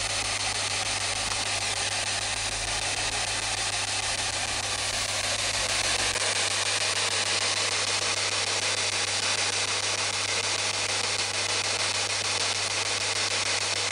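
Spirit box scanning rapidly through radio frequencies, giving out a steady hiss of radio static with no voices coming through.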